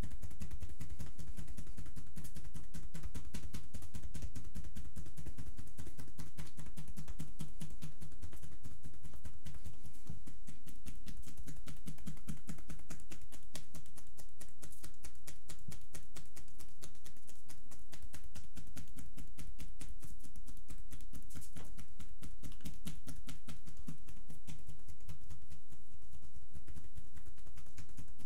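Hacking massage: loose-fingered hands chopping in rapid alternation on the bare skin of a person's upper back and shoulders, a fast, even run of dull thuds.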